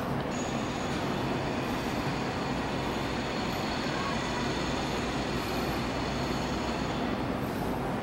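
Bremen Cathedral's church bells ringing, heard close up from inside the bell tower as a steady, dense, unbroken clangour.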